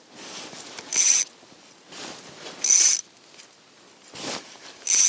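Ice-fishing reel paying out line as a tungsten jig is sent down the hole: short, whirring, ratchet-like bursts, a louder one about every two seconds with fainter ones between.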